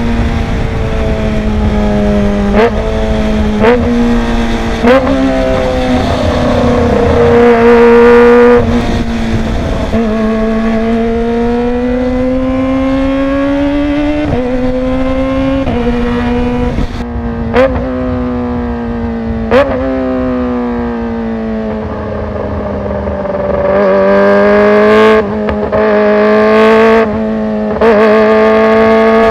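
Kawasaki ZX-25R's inline-four engine running loud through a Villan Z1 underbelly exhaust. Its pitch rises and falls slowly, with a sharp crack every few seconds.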